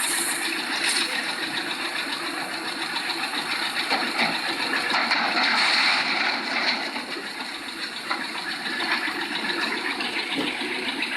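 Four-row self-propelled corn harvester running, its engine and machinery making a fairly steady mechanical noise.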